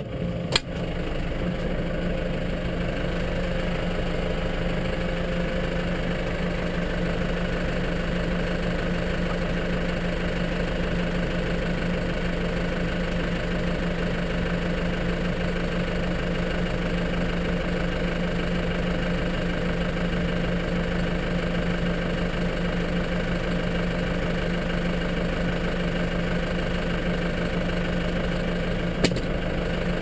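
Snow plough's engine idling steadily, heard from inside its cab. A brief knock comes about half a second in and another near the end.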